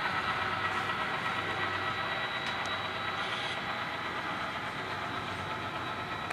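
HO scale model trains running on the layout: a steady rush of wheels rolling on the rails, with a few faint clicks.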